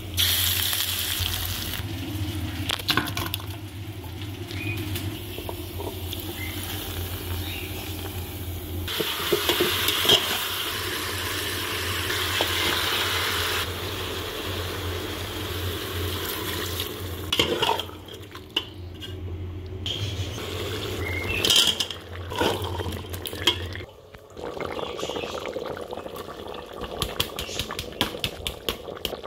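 Curry cooking in a metal pot: a spoon or ladle stirring and scraping against the pot, with sizzling and bubbling, and small clicks and knocks throughout. A louder stretch of hissing comes in the middle, over a steady low hum that stops near the end.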